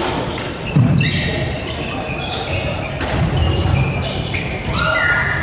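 Badminton hall with several courts in play: rackets hitting shuttlecocks and shoes squeaking on the wooden floor, echoing round the hall.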